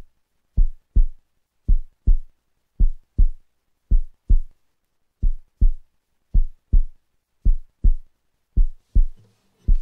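Heartbeat sound effect: slow, even double thumps (lub-dub), about one pair a second, with silence between them.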